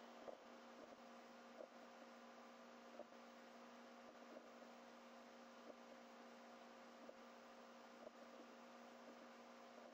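Near silence: a faint steady electrical hum in the recording, with very faint ticks about every second and a half.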